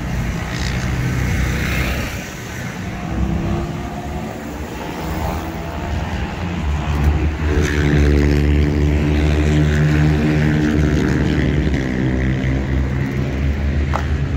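A generator's engine running steadily with an even hum, growing louder about halfway through.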